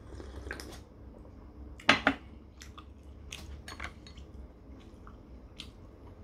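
Eating sounds: a sip from a mug, then a sharp knock about two seconds in. Light clicks of chopsticks against dishes and chewing follow.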